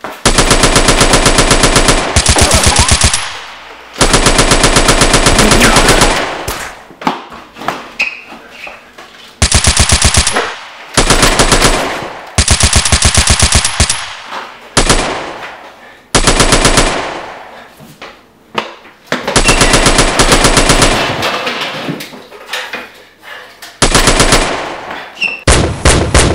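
Machine-gun fire sound effect: about eight long bursts of rapid automatic shots with heavy bass, separated by short gaps as each burst fades. It is far louder and faster than the spring-powered Nerf blasters could make.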